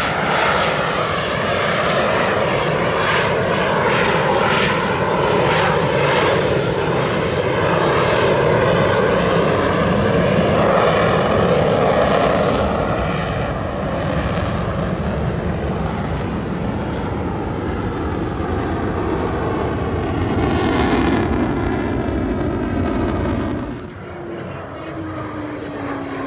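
Blue Angels F/A-18 Hornet jets flying low past, a loud rushing jet noise that swells as they pass, with sweeping shifts in pitch. The sound drops off suddenly near the end.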